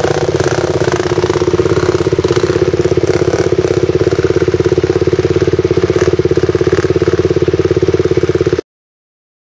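Dirt bike engine running steadily at low revs close by, with a fast, even pulsing beat; it cuts off abruptly near the end.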